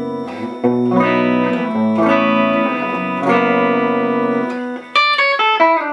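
Electric guitar played through an amp on a clean setting: a few strummed chords left to ring, then a quick run of picked single notes near the end.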